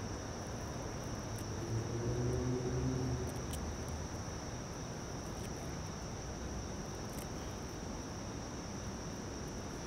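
Crickets chirping in a steady chorus, a continuous high-pitched trill. A faint low hum comes and goes about two seconds in.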